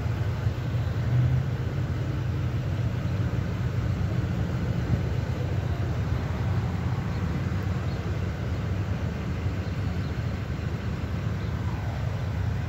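Steady low rumble of motor vehicles, even throughout with no distinct events.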